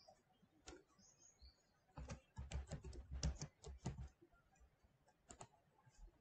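Quiet typing on a computer keyboard. A single keystroke comes about a second in, then a quick run of keystrokes from two to four seconds, and a couple more clicks near the end.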